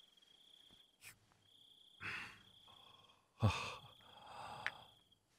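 Breathy sighs after downing a drink, a soft one about two seconds in and a louder one about three and a half seconds in, over a steady high chirring of crickets.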